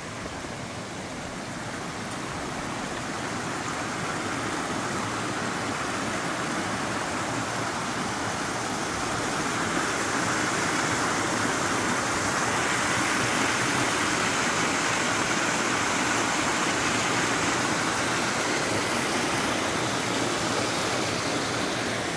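Waterfall's falling water rushing, a steady noise that grows gradually louder through the first half and then holds.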